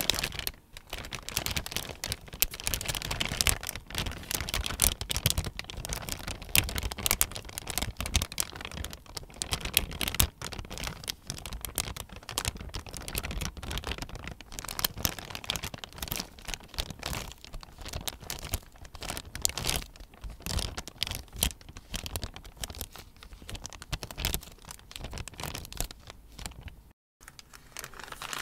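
Plastic poly shipping mailer crinkling and rustling under the fingers right at a microphone, with quick scratches and taps on the plastic.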